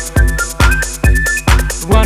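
Electronic dance music without vocals: a steady kick drum a little over two beats a second under short synth notes.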